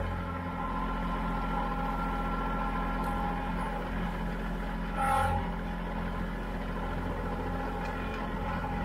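Kubota L3901 tractor's three-cylinder diesel engine running steadily while the tractor drives with a full tote of firewood on its front pallet forks, briefly louder about five seconds in.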